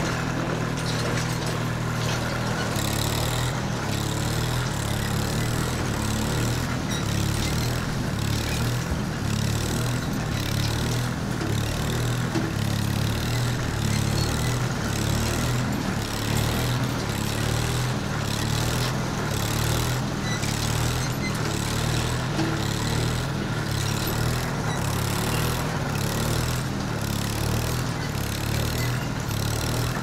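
Steady engine drone of heavy machinery running.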